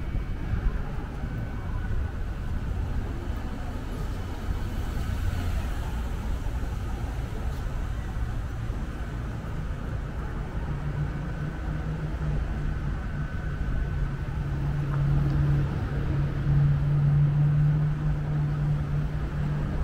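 City street traffic: a steady low rumble of passing vehicles. From about halfway through, a vehicle engine's low hum builds and is loudest near the end.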